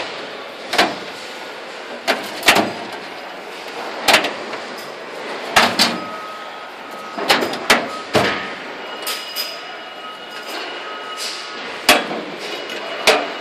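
Steel drawers of a Kennedy tool chest being slid open and shut: a dozen or so sharp metal clacks and bangs at irregular intervals over steady background noise.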